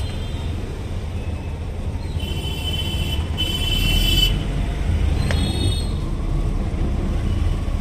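Auto-rickshaw (tuk-tuk) engine running with the steady low rumble of street traffic around it. A vehicle horn honks twice, each about a second long, between two and four seconds in.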